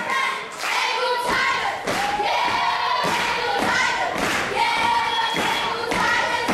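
Children's step team stomping and clapping in rhythm, with many young voices chanting together in long held shouts.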